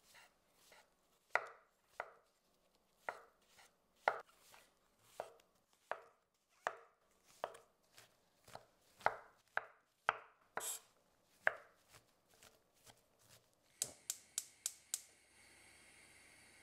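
Santoku knife slicing and chopping mushrooms on a wooden cutting board: a series of sharp knocks as the blade meets the board, about one or two a second, ending in a quick run of about six chops. A steady hiss follows for the last second or so.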